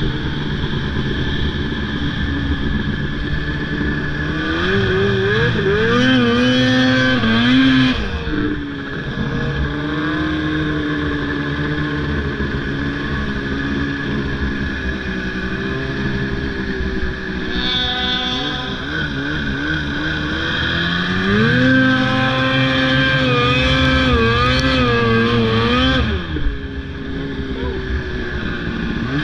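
Snowmobile engine running along a trail, opened up twice. The pitch climbs about four seconds in, holds high, and drops back at about eight seconds. It climbs again about twenty-one seconds in and holds until about twenty-six seconds before falling off.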